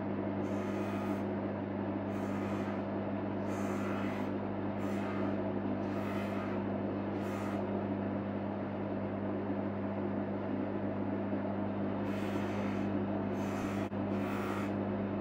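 Durston bench polishing motor running with a steady hum, with a brief hiss each time the stainless steel watch case back is pressed against the spinning fabric buffing mop, about once a second, stopping for a few seconds in the middle.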